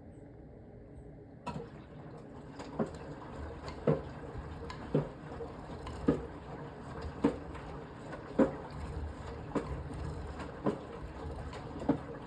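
Beko BM3WT3741W washing machine drum starting to turn about one and a half seconds in, with the wet load thudding against the drum about once a second as it tumbles in the wash.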